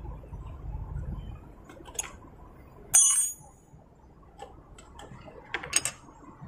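Small metal parts clinking as an Allen bolt and a metal bracket plate come off a motorcycle: one sharp, ringing metallic clink about three seconds in, with lighter clicks before and a quick cluster of clicks near the end.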